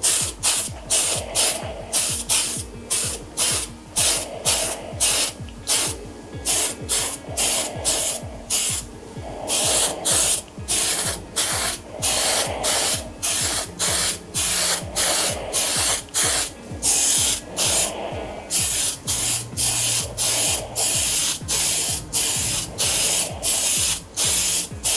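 Aerosol spray can of matte clear coat hissing in short, quick bursts, about two a second, as the nozzle is pressed and released, with a few longer sprays in the second half.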